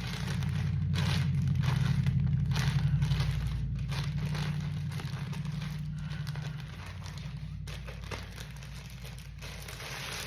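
Breathing through a mask: a low, buzzy rasp with crackling noise above it, loudest about two to three seconds in and then slowly fading.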